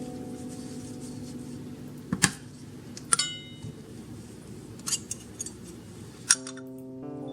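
Soft background music of held notes, with several sharp clicks and clinks of kitchenware on top, one about three seconds in ringing briefly like a cup or glass.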